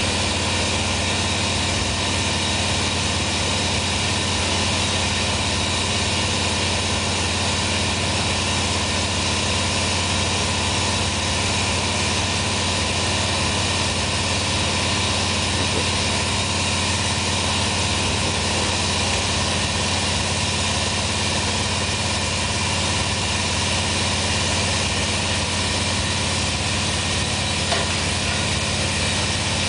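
Steady, even roar of a glass furnace and its blower, with a low hum underneath that never changes.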